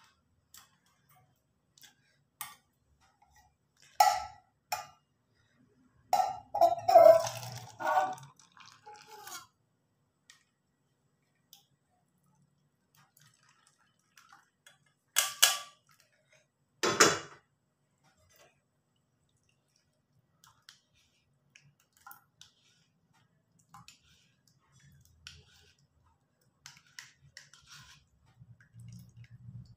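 Scattered clinks and knocks of stainless steel kitchenware being handled: a saucepan, bowl and cup knocking together with a plastic strainer. There is a cluster of them a few seconds in and two sharp knocks past the middle, with quiet gaps between.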